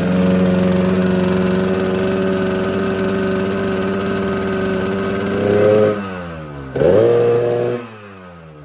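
Yamaha RX-King 135 two-stroke single, freshly ported and bored oversize, running at steady raised revs with the deep 'ngorok' exhaust growl given by its ngorok silencer filter. Near the end it is blipped twice, the revs falling away after each, then it drops back much quieter.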